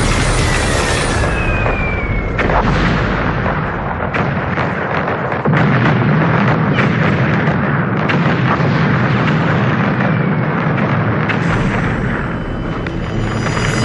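War-footage battle sound: artillery fire and explosions, with repeated sharp blasts over a dense rumble that grows heavier about five seconds in.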